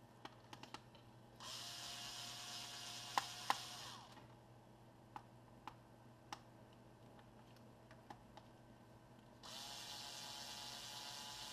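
Small electric screwdriver running in two bursts of a couple of seconds each as it backs out the laptop's back-panel screws, its motor winding down at the end of each burst, with light clicks of the screws and tool in between.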